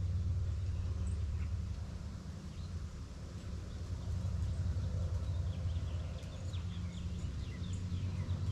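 Outdoor ambience: a gusting low rumble of wind on the microphone, with faint, short bird chirps scattered through the second half.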